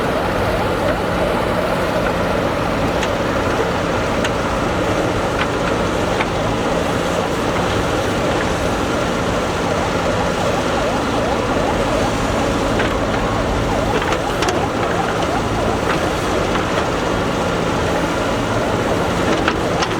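A JCB backhoe loader's diesel engine running steadily under working load, with occasional sharp knocks from the machine's work.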